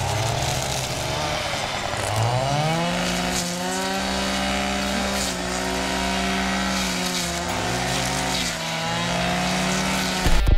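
Petrol brush cutter engine at high revs. It climbs from a lower speed about two seconds in, dips briefly around seven seconds and revs back up as it cuts brush. A loud low thump comes near the end.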